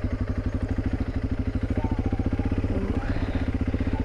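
Honda CRF300 Rally's single-cylinder engine running at low road speed, a steady, even stream of rapid firing pulses as the motorcycle rides slowly along a muddy dirt track.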